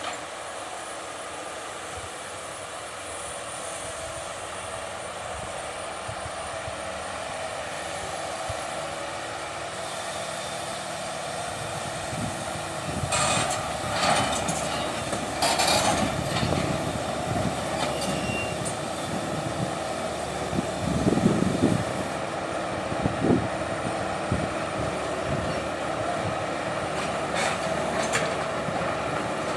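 Excavator's diesel engine running steadily and slowly growing louder, with heavier low rumbling spells under load and a few sharp metallic clanks around the middle and near the end.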